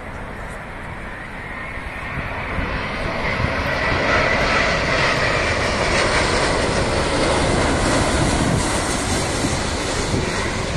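Airbus A350 twin-engine jet airliner passing low on final approach with its landing gear down, the engine noise swelling from about two seconds in to a loud rushing roar with a whine, easing slightly near the end.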